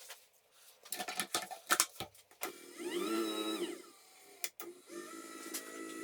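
A few sharp clicks and knocks, then a small electric motor whirs up in pitch, holds briefly and winds back down. A second, steadier motor whir starts near the end.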